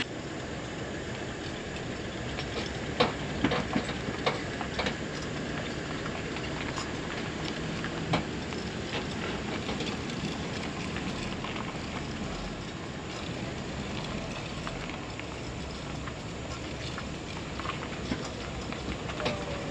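Boat trailer carrying a Sea-Doo Switch pontoon boat being towed slowly over pavement: steady rolling road rumble and wind, with scattered rattles and knocks from the trailer and boat frame, a cluster about three to five seconds in and another about eight seconds in.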